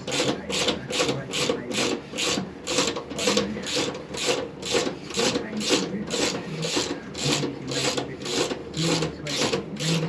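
A hand tool worked in quick, even strokes, about two a second, each stroke a short rasping burst.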